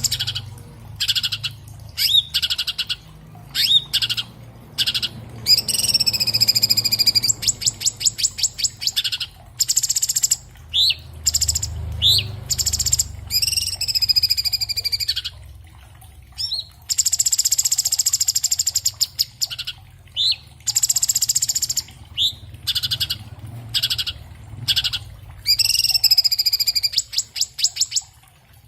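Orange-bellied leafbird (cucak cungkok, Chloropsis hardwickii) singing a fast, varied song. Short upslurred whistles alternate with rapid rattling trills and longer sweeping phrases that curve downward, and the song repeats several times over a faint low hum.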